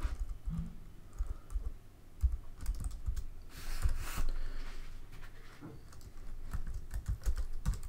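Computer keyboard typing: irregular keystroke clicks as a terminal command is entered.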